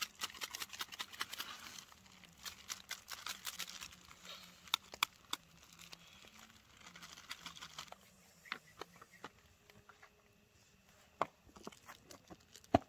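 Plastic instant-noodle packets crinkling and being torn open, a dense run of small crackles for about the first eight seconds, then only a few sparse sharp crackles.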